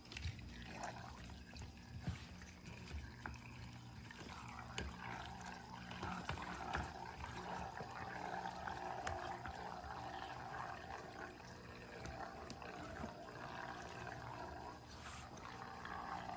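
Water trickling steadily, with scattered small clicks and taps.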